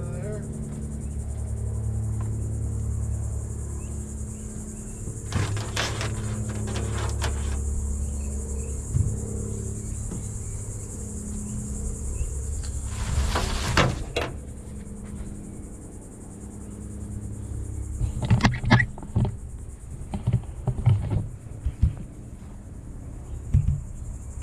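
Crickets chirring steadily over a low steady hum, broken by scattered knocks and rattles as parts and debris are pulled out of an aluminum jon boat.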